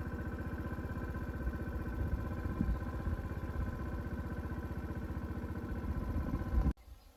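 Small motorbike engine running at a steady speed with an even firing pulse, cutting off abruptly near the end.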